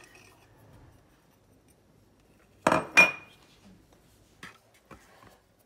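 A spoon clinking twice against a ceramic bowl, a third of a second apart, the second clink ringing briefly, followed by two fainter taps.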